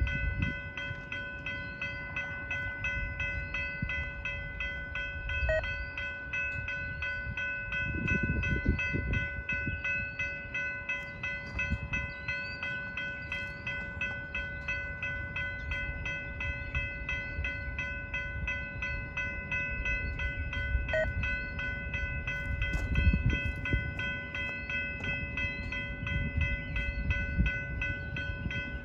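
A loaded freight train of tank cars rolling steadily past, its wheels rumbling on the rails with a few heavier swells. A steady high ringing tone runs over the rumble.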